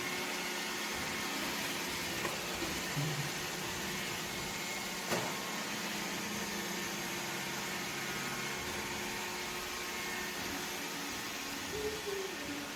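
Roomba robot vacuum running with a steady whirring hum and a faint click about five seconds in.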